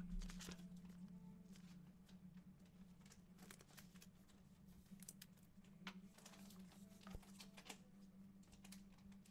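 Near silence: a steady low hum with faint scattered clicks and rustles of a trading card being handled.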